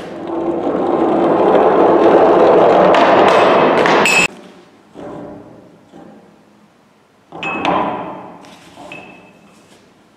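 Two cylinders rolling down an inclined wooden board, a rumble that grows louder for about four seconds and then stops abruptly with a sharp ringing clank as they hit the end. Later, a few knocks and a clatter as the next cylinders are set down on the board, one with a brief ring.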